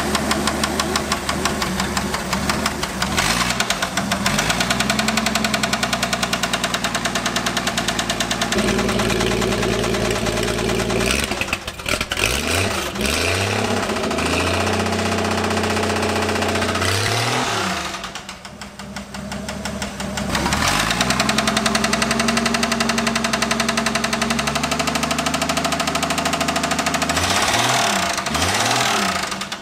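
AMC Eagle engine running with a rapid knock, its revs rising and falling several times and dipping back toward idle between. The crankcase is loaded with thick oil additives to quiet the knock from a blown motor.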